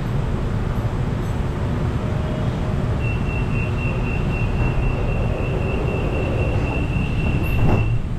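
MRT Yellow Line monorail car standing with its doors open over a steady low hum. About three seconds in, a single high door-closing warning tone starts and holds, and near the end the sliding doors shut with a thump that cuts the tone off.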